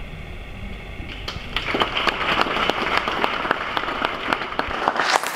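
Audience applauding, the clapping starting about a second in over a steady hum and building, with claps close by getting louder near the end.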